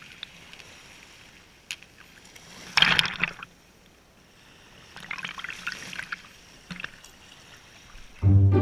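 Small surf waves washing over shallow water and wet sand right at the camera, with a loud splashing wash about three seconds in and a softer one about five seconds in. Music starts just before the end.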